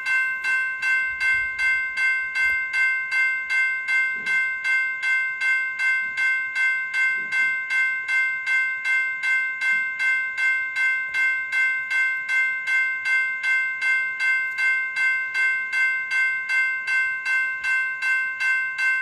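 General Signal Type 2 E-Bell, an electronic fire-alarm bell, ringing continuously: an even run of bell strokes, about two and a half a second, each with the same bright ringing tone.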